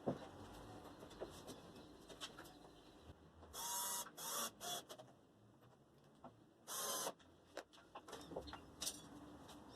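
A few short bursts of a small electric motor, each about half a second long with a slight rising whine, among light clicks and knocks.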